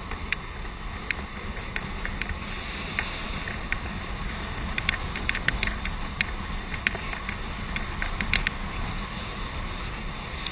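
Longboard wheels rolling fast on asphalt: a steady rumbling rush, with scattered sharp clicks and ticks that come thickest in the middle.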